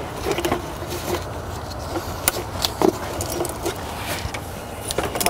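Scattered light clicks and small metallic rattles of a T-bolt hose clamp and a rubber intercooler hose being handled and fitted, over a steady low background hum.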